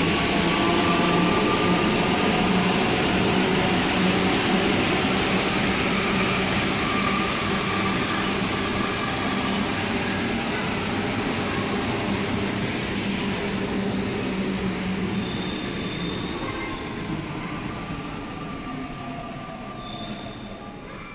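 Santiago Metro NS-93 rubber-tyred train running in the station, a dense rolling rumble with a steady motor hum. It grows steadily quieter, and the hum drops out about three-quarters of the way through.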